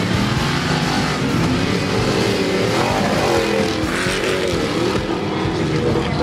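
Modified off-road competition jeep engine revving hard, its pitch climbing and dropping several times.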